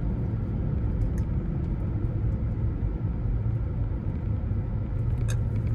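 Steady low rumble of a car's road and engine noise heard from inside the cabin while driving, with a couple of faint ticks.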